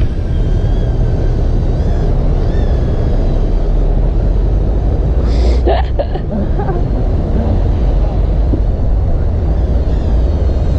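Steady low rumble of wind on the microphone and city traffic, with the faint wavering high whine of a small drone's propellers overhead.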